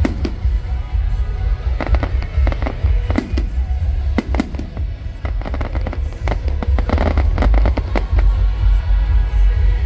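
Fireworks going off in quick succession: many sharp bangs and crackles over a steady low rumble.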